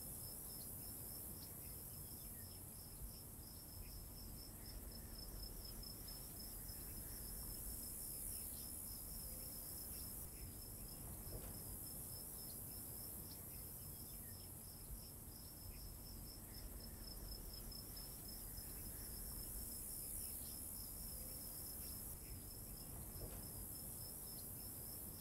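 Crickets chirping in a grassy field: a faint, steady high chirp repeating several times a second.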